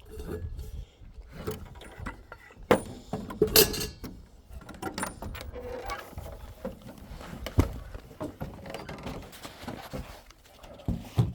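Irregular clicks, knocks and rattles of handling, with a sharp knock about three seconds in and a louder rattle just after.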